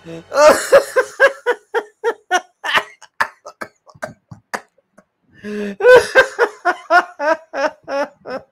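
Men laughing hard in quick, high-pitched pulses of about three a second, in two bouts with a short break about five seconds in.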